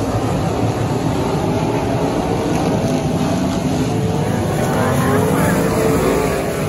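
Several dirt-track limited modified race cars with V8 engines running around the oval, their engine notes overlapping in a steady drone. About five seconds in, one car passes close and its engine swells louder, then eases off.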